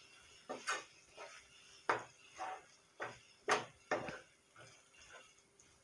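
Wooden spatula scraping and knocking against a frying pan while stirring a soft paneer bhurji mixture, in a series of irregular strokes that die away about four and a half seconds in.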